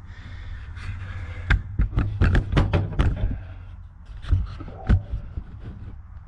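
Pliers pressing a metal friction clip onto a shaft: a run of sharp clicks and taps, densest in the first half, with two more near the end, over a steady low hum.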